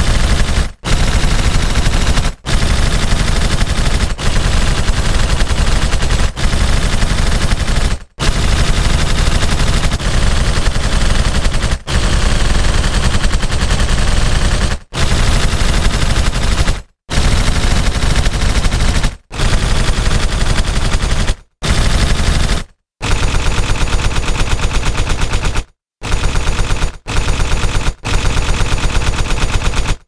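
Stylized machine-gun sound effect: repeated bursts of rapid automatic fire, each lasting one to a few seconds, with brief pauses between them. In the last few bursts the shots are lighter in the bass.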